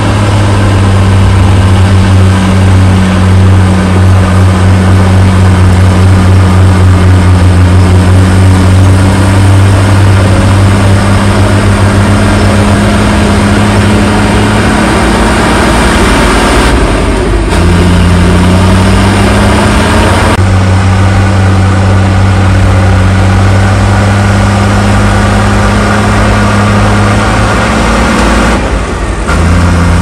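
Komatsu crawler bulldozer's diesel engine running hard as the dozer pushes dirt, a loud steady drone whose pitch dips and climbs again a few times as the load changes.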